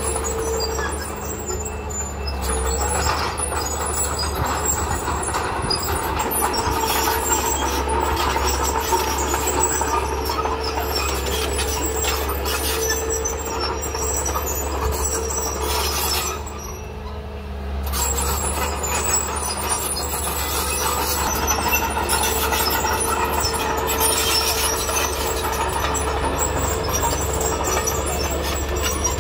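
Diesel engine of heavy earthmoving machinery running steadily under load, with a steady whining tone over a low rumble. The sound drops briefly a little past halfway through, then picks back up.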